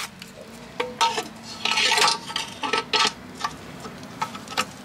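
Light metallic clinks and knocks, several of them with a short ring, and a brief scrape about two seconds in, from the BMW R1200GS's metal engine under guard being handled against the engine.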